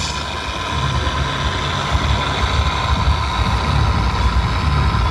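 Engine sound of a radio-controlled model Scania V8 truck, running steadily with a low, even note as the truck drives slowly.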